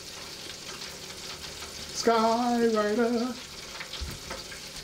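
Chicken pieces frying in hot oil in a T-fal FR8000 electric deep fryer with its lid closed: a steady sizzle.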